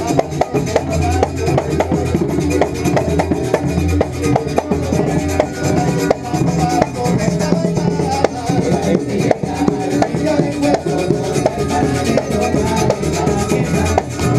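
Live percussion music: several tall hand drums struck in a fast, busy rhythm, with low bass notes underneath.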